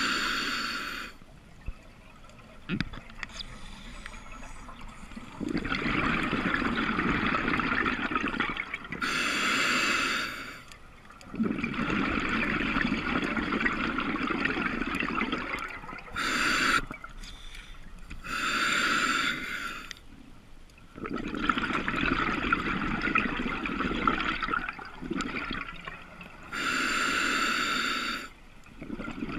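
Open-circuit scuba regulator breathing underwater: short hissing inhales of about a second each alternate with longer bubbling exhales of three to five seconds, several breaths in a row.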